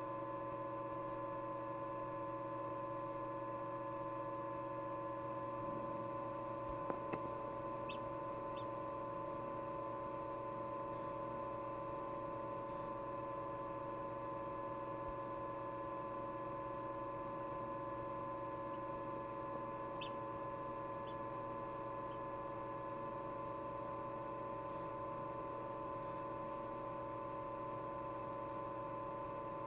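Steady electrical hum of an egg incubator, with a few brief high peeps from a chick pipping inside its egg: two about eight seconds in and three more around twenty seconds in. A single sharp click comes just before the first pair.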